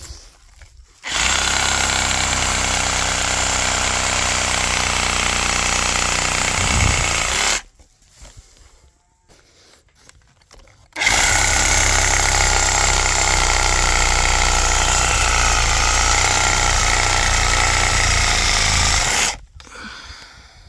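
Makita cordless reciprocating saw cutting through thick, woody cannabis stalks at the base of the plant. It runs in two long, steady stretches, about six seconds and then about eight seconds, with a pause of a few seconds between.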